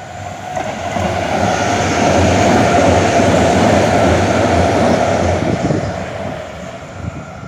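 Electric light rail train passing by on its tracks: its running noise builds to a peak in the middle and fades as it moves away near the end.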